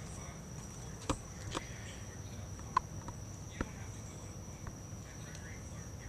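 Crickets chirping, a steady high-pitched trill throughout, with a few faint sharp clicks scattered through it, the loudest a little before the middle.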